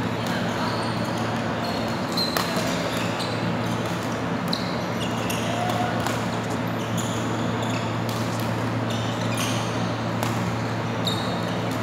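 Badminton play: rackets hitting the shuttlecock with scattered sharp pops and court shoes squeaking briefly on the court mat, over a steady low hum and faint voices.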